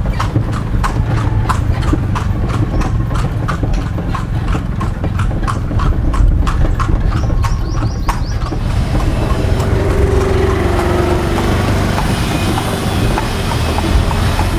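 A carriage horse's hooves clip-clopping at an even pace of about three steps a second over a low steady rumble. After about eight seconds the clopping stops and a steady rushing noise takes over.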